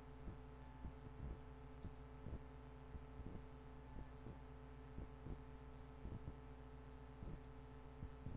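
Faint steady electrical hum with soft, irregular clicks about once or twice a second, most likely computer mouse clicks.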